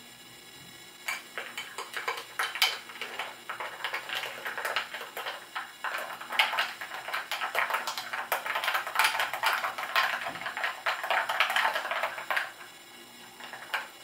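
Metal spoon stirring iced dalgona coffee in a glass mug: quick, irregular clinks of the spoon against the glass and ice cubes over a soft wet swishing of the whipped foam and milk. The stirring starts about a second in and stops near the end, with one last clink after it.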